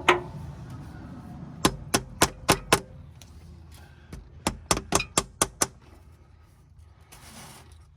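Quick runs of sharp metal-on-metal hammer blows, about four a second: one at the start, then bursts of five and of seven. They are working loose a stuck bolt on an old backhoe's oil-bath air cleaner.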